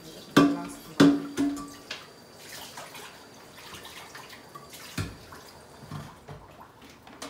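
Metal clanking against a stainless steel cooking pot: two sharp strikes about a second in, each ringing briefly, then lighter knocks and a dull thump about five seconds in.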